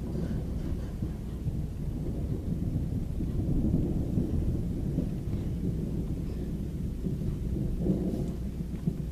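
Thunder rumbling low and continuously, swelling about four seconds in and again near the end.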